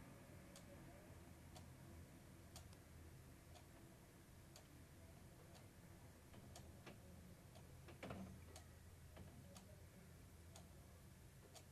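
Near silence: faint room tone with a soft tick about once a second, and a slightly louder brief sound about eight seconds in.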